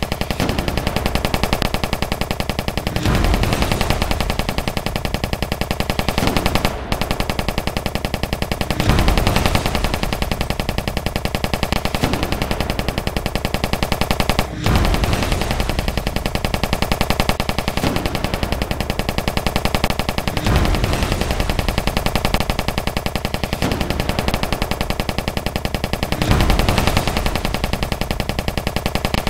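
Battle sound effects: continuous rapid machine-gun fire, with louder, deeper bursts about every six seconds.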